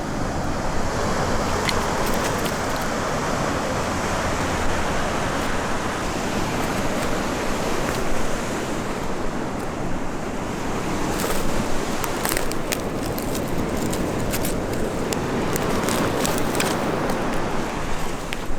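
Sea waves washing on the shore, the rush swelling and ebbing every few seconds, with a scattering of sharp crackles about two-thirds of the way in.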